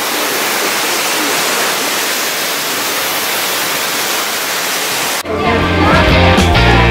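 Steady rush of running water for about five seconds, then it cuts off abruptly as guitar-led background music with a stepping bass line starts.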